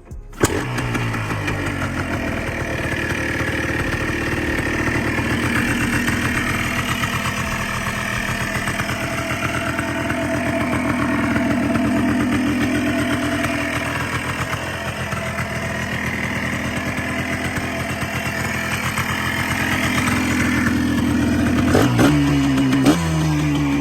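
Yamaha Blaster's single-cylinder two-stroke engine catching on a cold start about half a second in, then idling steadily. Near the end the throttle is blipped a few times, the pitch rising and falling with each blip.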